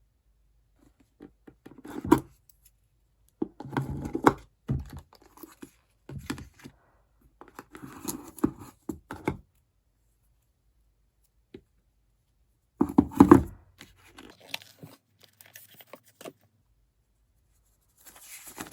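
MacBook Pro packaging being torn open and handled: several short bursts of tearing and rustling paper and cardboard, the loudest about two-thirds of the way through, followed by fainter handling.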